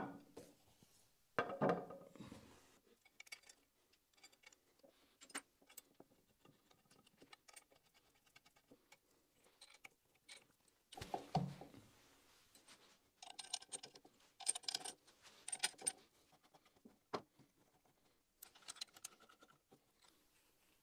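Intermittent clicks, scrapes and light knocks of steel machine parts being handled as a lathe cross slide is fitted onto its slideways, with a cluster of sharper, ringing metal clinks about two thirds of the way through.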